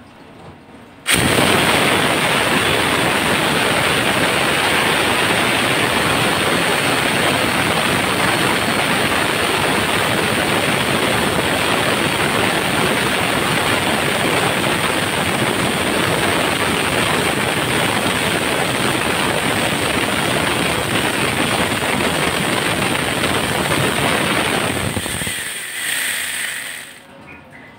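Angle grinder fitted with an 11.5-inch Kodenki chainsaw bar-and-chain adapter, switched on about a second in and running loud and steady with a high whine while its chain saws into a wooden block. Near the end it is switched off and winds down over about a second and a half.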